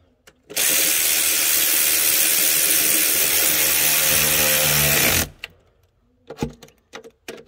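Cordless power tool spinning a bolt down, running steadily for about four and a half seconds before stopping abruptly. A few light clicks and knocks follow near the end.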